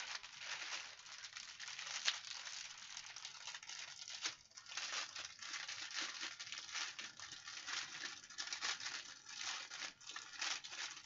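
Clear plastic wrapping crinkling as a roll of bagged diamond-painting drills is handled and unwrapped: a continuous dense crackle with a few louder snaps.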